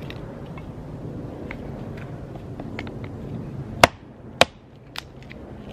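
Small hatchet chopping fatwood against a fallen log: a few light knocks of wood, then two sharp chops about half a second apart, followed by a lighter third.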